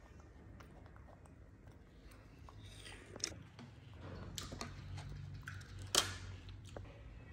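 A baby monkey eating watermelon: faint chewing, with a few sharp clicks of a metal fork against a ceramic plate, the loudest about six seconds in.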